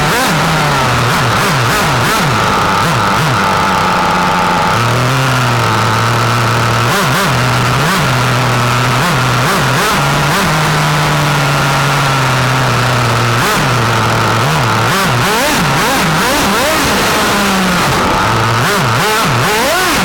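1/8-scale radio-controlled car's Longo nitro engine, heard from a camera on board the car, revving up and down repeatedly with the throttle, with a few steadier stretches at part throttle.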